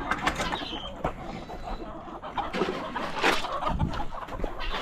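Chickens clucking, with scattered short clicks and rustles.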